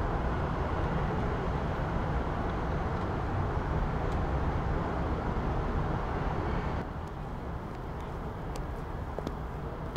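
Steady night street ambience with a low traffic hum. About seven seconds in it drops to a quieter hum, with a few faint clicks.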